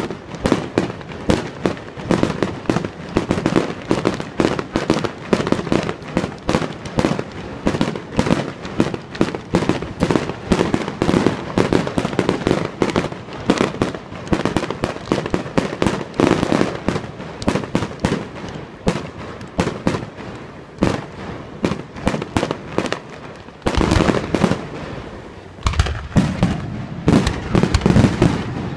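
Fireworks display: a fast, continuous run of bangs and crackles from aerial shells, several reports a second. The bangs thin out briefly before a denser run of louder ones near the end.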